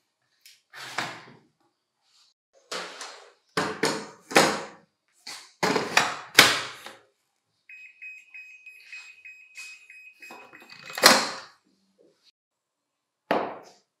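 Hard knocks and clacks from handling a cordless vacuum cleaner and its battery pack, coming in short clusters, with the loudest knock about eleven seconds in. A faint steady high tone sounds for about three seconds in the middle.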